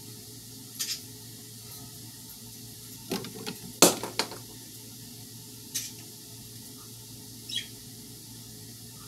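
Handling noise: light clicks and taps against a mesh screen enclosure, with a louder cluster of knocks about three to four seconds in, over a steady low hum.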